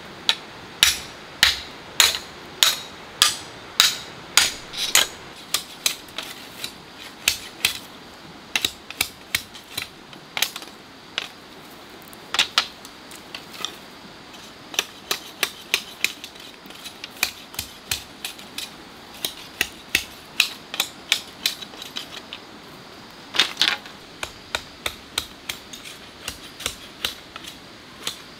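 Machete blade striking bamboo over and over: sharp chops at a steady pace of about one and a half a second at first, then in less regular, quicker clusters.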